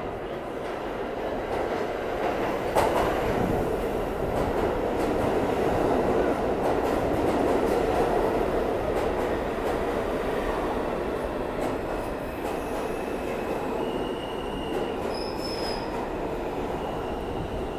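New York City subway train pulling into an underground station: a heavy rumble of wheels on rail that grows louder after a sharp clank about three seconds in, then eases as the train slows. Short high-pitched wheel squeals sound several times in the second half.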